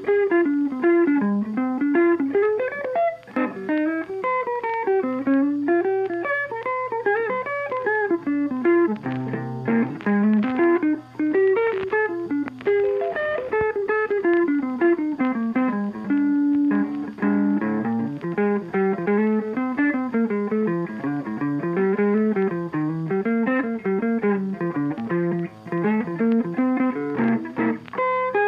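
Background instrumental music: a busy melody of short notes moving up and down over a steady low held note.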